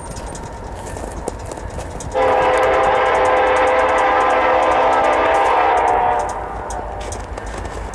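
Multi-tone air horn of the approaching CN EMD SD70M-2 locomotive sounding one long blast, starting about two seconds in and lasting about four seconds, part of its grade-crossing signal. A crossing bell ticks rapidly underneath.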